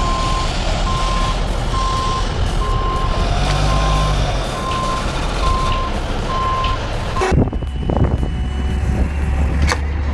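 Backup alarm on heavy logging equipment beeping at one steady pitch, about once a second, over loud machinery noise. About seven seconds in, the beeping cuts off suddenly, leaving a lower, steady engine rumble with a few sharp knocks.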